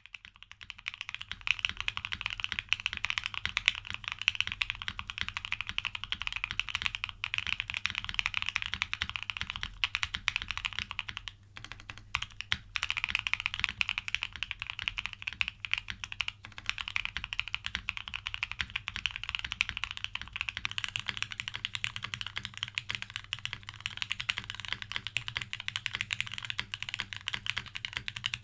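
Loki65 custom 65% mechanical keyboard being typed on fast and continuously, a dense run of keystroke clacks. The case has no foam inside. The typing stops briefly about 11 seconds in, then carries on.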